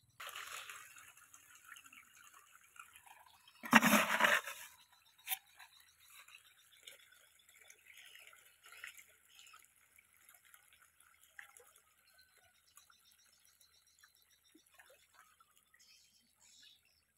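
Water splashing and crackling as a dense shoal of pangasius catfish thrashes at the pond surface, a light, irregular patter. About four seconds in there is a short, much louder burst of noise, followed by a single sharp click.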